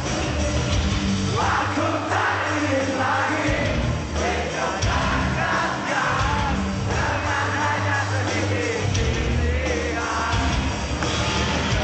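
Rock band playing live: singing over loud guitars, bass and drums, with a heavy, steady low end.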